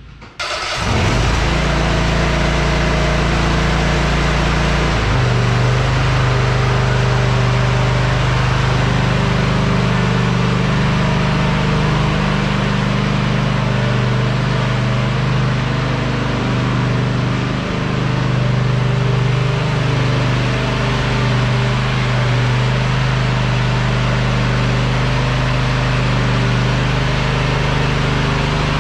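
An engine running steadily at idle, its low note shifting and then holding even about five seconds in.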